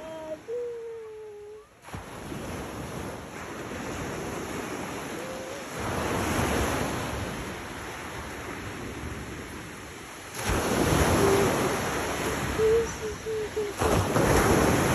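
Waves breaking and washing up a gravel beach, with wind buffeting the microphone; the surf swells loudest about six, ten and fourteen seconds in.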